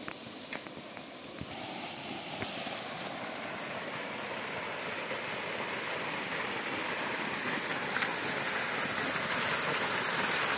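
Heavy stream of water gushing from the discharge pipe of a 15 HP solar submersible pump and splashing onto the ground. It is a steady rush that grows louder throughout.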